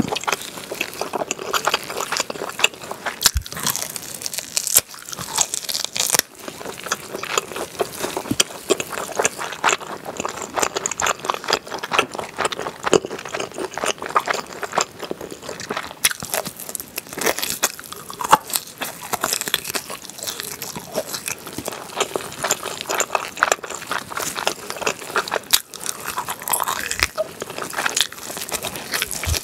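Close-miked eating sounds: biting meat off grilled, glazed pork back ribs and chewing it, a dense run of crisp, irregular crunches and clicks.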